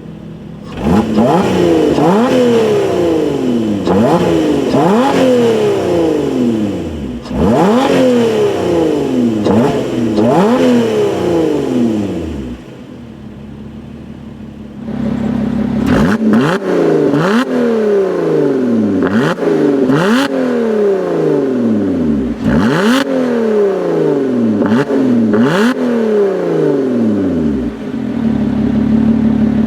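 2017 Lotus Evora 400's supercharged 3.5-litre V6 revved at standstill in sport mode, exhaust bypass valves open: two runs of quick throttle blips, each rev rising sharply and falling straight back, with a short spell of idle between the runs and again near the end. Sharp cracks come among the later revs.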